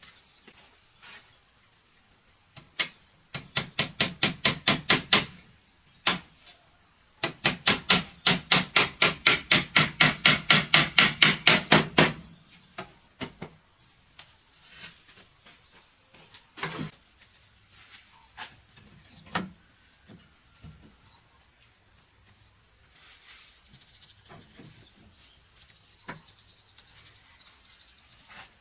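Hammer striking wood in two quick runs of blows, about four a second, the second run longer, then scattered lighter knocks. A steady high insect drone runs behind.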